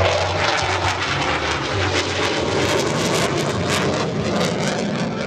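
MiG-29 fighter's twin Klimov RD-33 turbofans at display power as the jet passes and climbs away: a loud, steady jet rush that turns ragged and crackling through the middle.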